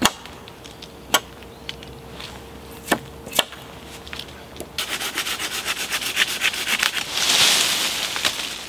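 Hatchet knocking stubs off a wooden shelter pole: a few sharp separate chops in the first few seconds, then a fast run of short scraping strokes swelling into a rushing noise near the end.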